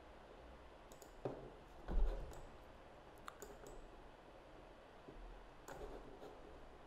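Scattered single clicks of a computer mouse, seven or so spread unevenly, with a soft thump about two seconds in, against faint room noise.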